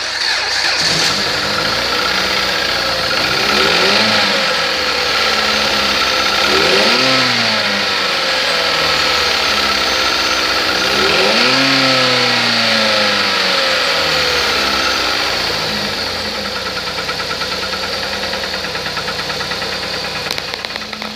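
Chrysler 2.4 L Dual VVT four-cylinder engine starting, then revved up and back down three times before settling into a steady idle.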